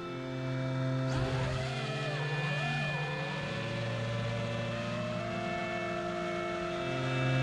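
FPV quadcopter's brushless motors and propellers whining, the pitch swooping up and down with throttle changes about a second in, then holding nearly steady and rising slightly, over background music.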